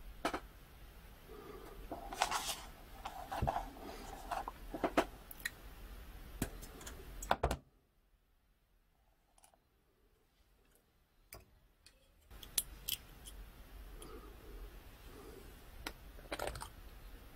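Small plastic scale-model kit parts handled and fitted together by hand: scattered clicks, taps and light scrapes of plastic. A stretch of near silence from about eight to twelve seconds in.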